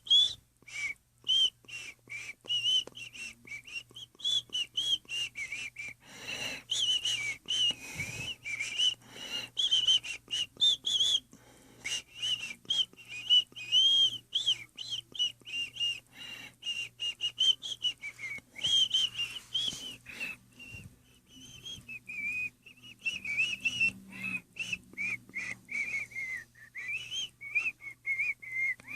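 High whistling that wavers up and down in pitch almost without a break, mixed with many short clicks and rustles.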